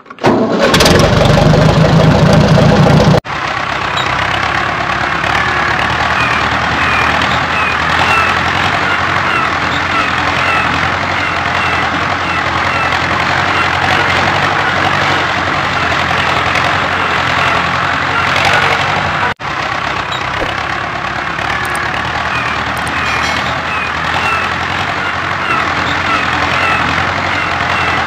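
Tractor engine sound starting up, then running steadily, with sudden breaks about 3 seconds in and again about 19 seconds in.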